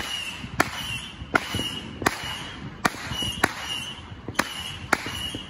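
Fireworks going off: a steady series of sharp bangs, about one every 0.7 seconds.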